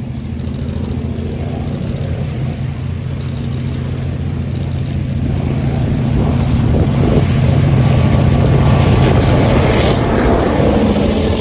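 Diesel locomotive running under power as the train approaches, its engine drone low and steady, growing louder to a peak about eight seconds in and easing slightly near the end.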